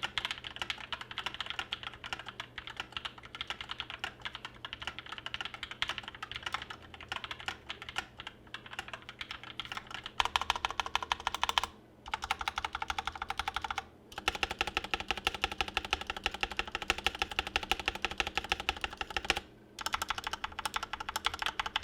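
Typing on a TM680 hot-swap mechanical keyboard with lubed Bolsa Techno Violet switches and GMK Arctic keycaps: a fast, dense run of key clacks, louder from about halfway, with three brief pauses.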